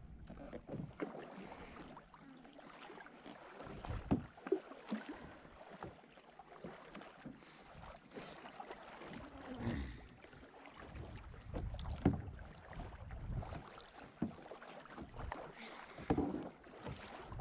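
Water splashing and lapping against a kayak, with irregular small splashes and knocks and some wind on the microphone.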